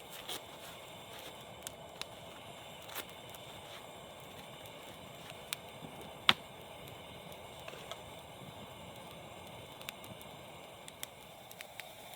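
Wood campfire burning with a soft steady hiss and scattered crackles and pops, one sharp pop louder than the rest about six seconds in.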